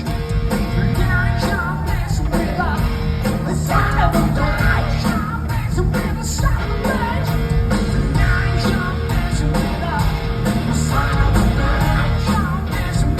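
Live rock band playing loudly, with a singer's vocals over electric guitar, bass and drums.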